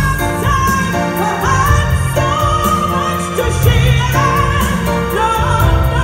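A woman singing an R&B song live into a microphone over a backing band with heavy bass, her held notes wavering in pitch.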